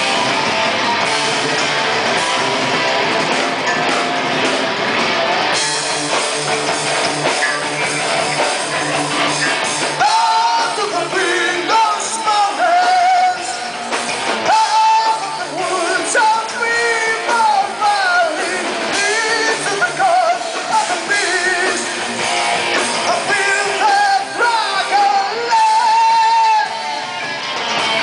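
Live heavy metal band playing: distorted electric guitar and drums, with a voice singing over the band from about ten seconds in.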